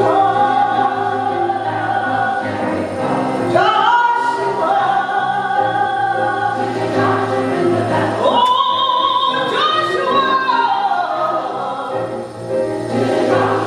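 Women's chorus singing with piano accompaniment. The voices slide up into long held chords several times.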